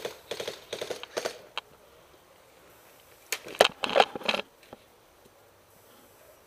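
Footsteps and gear rattling as a player moves, in two spells of crunching steps, the louder about three and a half seconds in.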